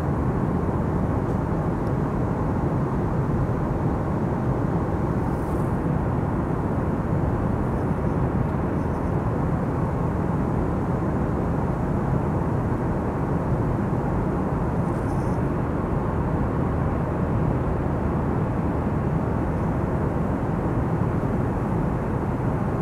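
Steady cabin noise of an Airbus A321 airliner in cruise, its engine and airflow noise heard inside the cabin at a window seat.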